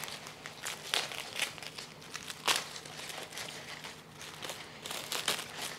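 Thin plastic wrapping crinkling and rustling in the hands as it is peeled off a bare-root plant's roots, in irregular crackles with the sharpest about two and a half seconds in.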